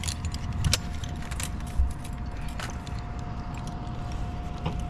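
Scattered clicks and clinks of metal rope-rescue hardware, such as carabiners knocking together, as a rescuer on rope moves off the litter. Under them is a low rumble and a faint steady tone.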